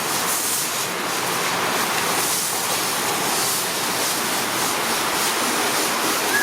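Steady rain falling on wet ground, an even hiss of water with no break.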